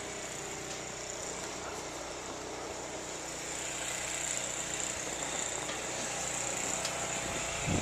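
A steady low engine hum from a running motor vehicle, with a steady hiss above it, growing slightly louder partway through.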